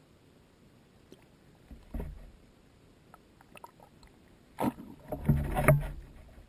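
Water splashing and sloshing close to the microphone: a short burst about two seconds in, then a longer, louder spell of splashes with low thuds from about four and a half to six seconds.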